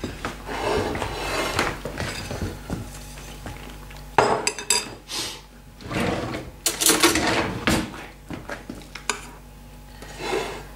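Metal serving spoon scraping and clinking against a stainless steel pan and a china plate as food is dished up. The clinks come irregularly, with a sharp one about four seconds in and a run of clatter between about six and eight seconds in.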